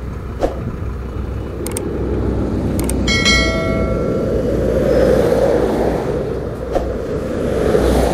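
Car driving at motorway speed: steady road and engine rumble. A short ringing chime sounds about three seconds in, just after a couple of clicks.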